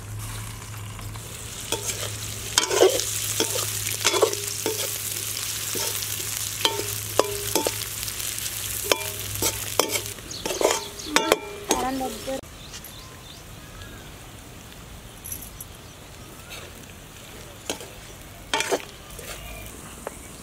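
Diced potatoes frying in oil in a metal kadhai, sizzling, while a metal slotted spoon scrapes and clinks against the pan as they are turned. About twelve seconds in the stirring stops and the sizzle drops low, with only an odd clink after.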